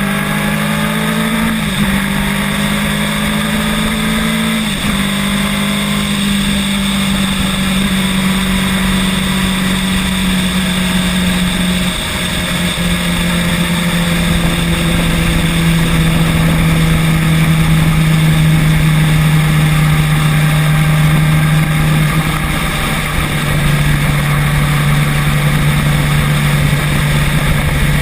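Motor vehicle engine running on the move, its pitch climbing and then dropping in steps a few times, as at gear changes.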